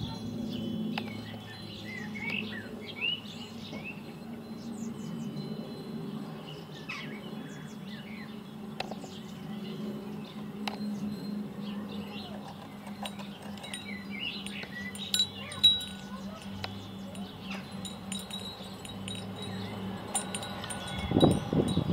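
Airbus A400M's four turboprop engines and eight-bladed propellers droning steadily overhead, with birds chirping and some high ringing tones over it and a brief louder low rumble near the end.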